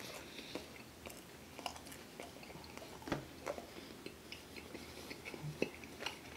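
A person chewing a mouthful of pepperoni pizza close to the microphone: soft, wet mouth clicks and smacks, scattered and irregular, with a sharper click about three seconds in.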